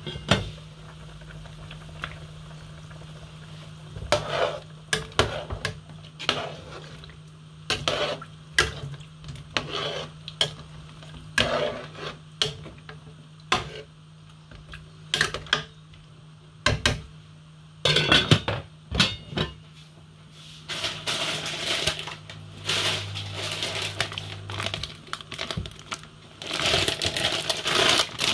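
Metal spoon stirring soup in an aluminium cooking pot: a string of sharp clinks and knocks of spoon on pot and lid, over a steady low hum. Near the end the clinks give way to a longer rustling noise.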